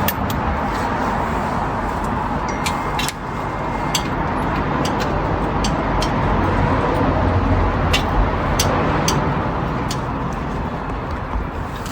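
Road vehicle noise that swells for several seconds and then fades, with scattered light clicks over it.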